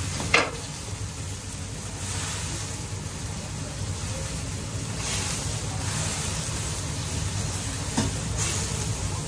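Steady rushing of a gas wok burner under a wok of simmering broth, with a light sizzle, as utensils stir the food. A sharp knock of a utensil on the wok comes about half a second in and another at about eight seconds.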